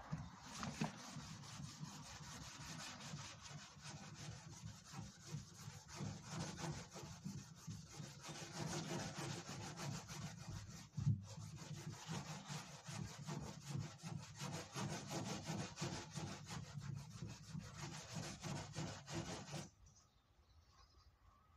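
Hand sanding of filler primer on a Peugeot 203's steel front wing with a sanding block: quick, continuous back-and-forth scratching strokes that stop about two seconds before the end. A single sharp knock stands out about halfway.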